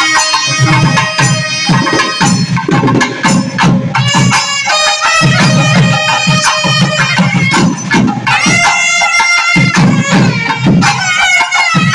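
Two nadaswaram-style double-reed pipes playing a held, gliding melody together over a hand-played barrel drum keeping a steady beat.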